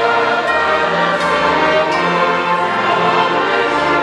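Live orchestra and a large choir performing a classical choral piece: a continuous, full sound of sustained chords.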